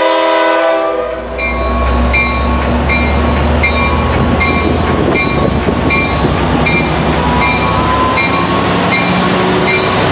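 Amtrak F59PHI diesel locomotive arriving slowly: its horn sounds a chord that cuts off about a second in, then its bell rings about twice a second over the low rumble of the engine and the passing train.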